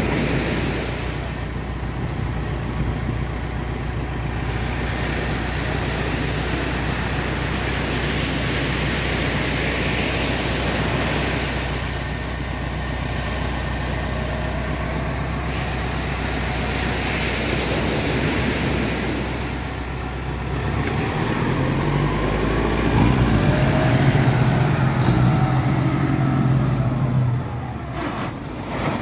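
Diesel launch tractor running steadily, with surf breaking. About two-thirds of the way in, a louder engine note revs up and glides in pitch as the boat is pushed into the waves, then falls away near the end.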